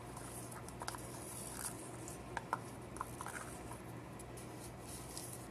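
Small clicks and brief light scratching from hands handling things on a work table, over a low steady hum.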